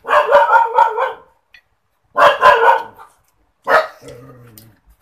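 A dog barking loudly in three quick bouts of barks.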